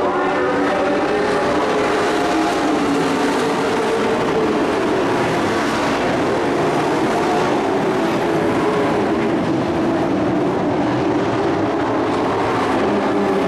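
A pack of dirt-track race trucks running at racing speed, their engines a continuous loud drone of several engines together, the pitch rising and falling as they pass.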